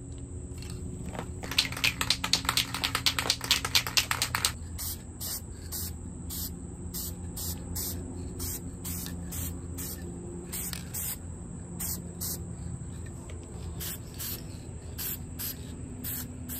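An aerosol can of metallic gold spray paint is shaken, its mixing ball rattling fast for about three seconds. Then it sprays in short hissing bursts, about two a second. A steady high insect drone runs underneath.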